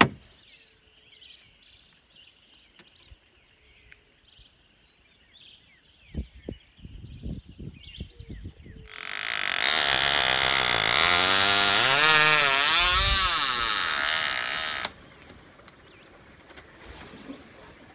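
Birds chirping over a steady high insect drone at a wooded riverbank. About nine seconds in, a loud motor noise whose pitch rises and falls takes over for about six seconds, then cuts off, leaving the insect drone.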